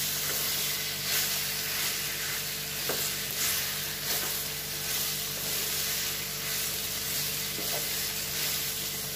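Potato pieces sizzling in hot oil and spices in a frying pan while a wooden spatula stirs and scrapes them, with a steady frying hiss broken by soft scrapes of the spatula on the pan.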